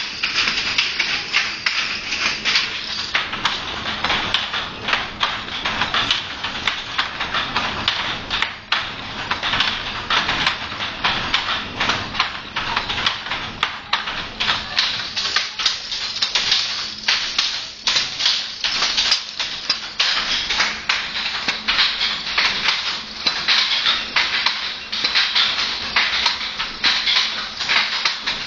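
Wooden handlooms in use, clacking without pause: a dense, irregular clatter of wooden knocks.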